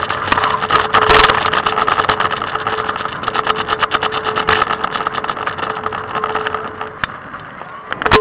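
Trikke scooter's wheels rolling fast over pavement: a rapid, rattling rumble with a steady hum, easing off near the end, then a sharp knock.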